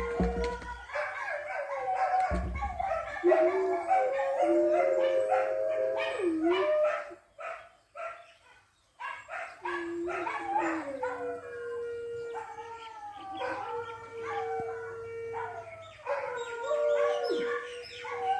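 Several dogs howling together: long, wavering howls that overlap one another. The chorus breaks off for a second or two about halfway through, then starts up again.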